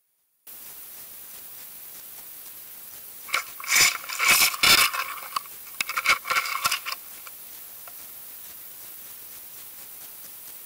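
Underwater camera knocked and scraped about on a sandy bottom: a cluster of sharp clicks, rattling scrapes and a couple of heavier knocks lasting about four seconds, over the steady hiss of the underwater recording.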